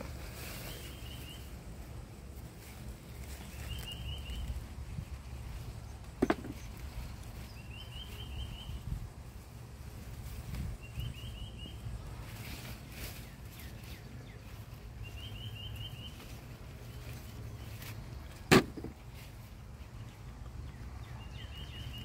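Hands digging and rummaging through soil and sweet potato vines over a low steady rumble, with two sharp knocks, about six seconds in and again later. A high, quick chirping phrase repeats every few seconds.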